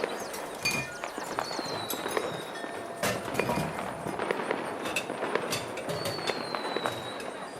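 Fireworks going off in an ambience mix: sharp pops and crackles, and two long high whistles that fall slightly in pitch, over background music.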